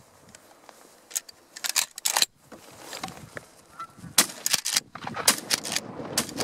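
Canada geese honking, a rapid series of short, loud honks in loose bursts starting about a second in, as the birds are put to flight.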